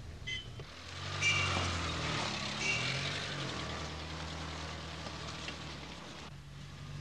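Car engine running and tyres on the road as a car drives by, the engine pitch rising and falling briefly, with two short high squeaks near the start. The road noise drops away suddenly about six seconds in.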